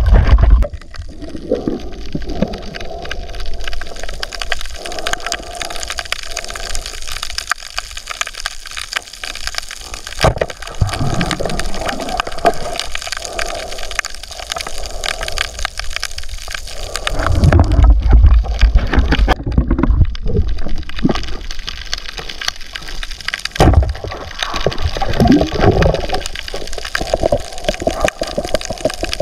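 Underwater sound picked up by the submerged camera: a continuous dense crackle of tiny clicks, with louder gurgling surges of water about two-thirds of the way through and again near the end.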